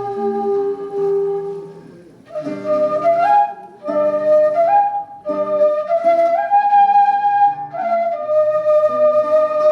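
Quena (Andean notched flute) playing a melody over a recorded backing track with chord accompaniment. A long held note dies away about two seconds in, then a new phrase of short stepping notes begins, rising and falling.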